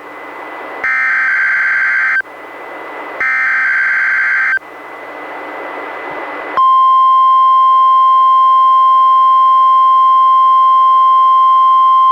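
NOAA Weather Radio Required Weekly Test on a Reecom R-1630 weather radio. Two buzzy bursts of SAME digital header data come about two seconds apart, with radio hiss between them. About six and a half seconds in, the steady single-pitch warning alarm tone starts and holds.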